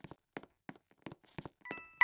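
A run of light, irregular taps and clicks, with a ringing ding starting near the end.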